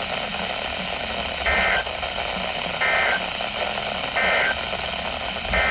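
Weather-radio broadcast over steady static: three short, identical bursts of two-tone SAME digital data about a second apart. They are the end-of-message code that closes the severe thunderstorm warning. Near the end a longer data burst begins, the header of the next alert.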